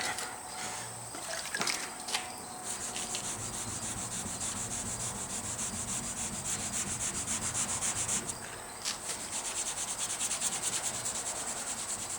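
Wet sandpaper on a soft sanding block rubbed back and forth over the metallic base coat of a truck panel. The strokes are steady and rhythmic, a few a second, with a short pause about eight seconds in.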